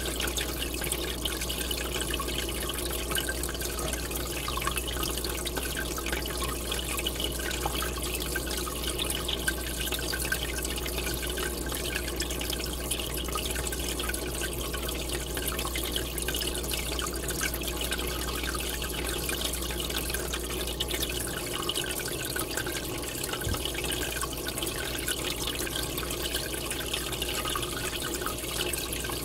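Steady bubbling of an aquarium air stream rising and breaking at the water surface, a continuous fizzing patter of water. A low hum runs underneath and drops away about three-quarters of the way through.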